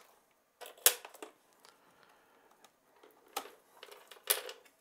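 A few sharp clicks and knocks as HDMI cable plugs are pulled from a video mixer's ports and handled against the plastic case, with faint rustling between them; the loudest click comes about a second in, another near the end.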